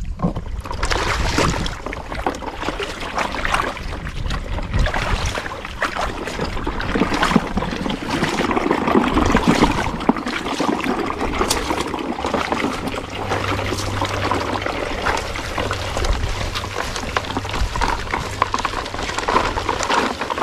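Plastic toy truck and trailers pushed through shallow stream water, with steady splashing and sloshing and many small clicks and rattles from the plastic toys and gravel.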